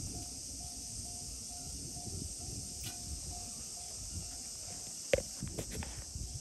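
A steady high-pitched insect drone with a faint note pulsing about one and a half times a second, over a low rumble. A sharp knock about five seconds in, followed by a few lighter clicks.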